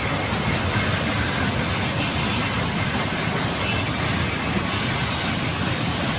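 Freight train of railway tank cars rolling past, a steady noise of steel wheels running on the rails.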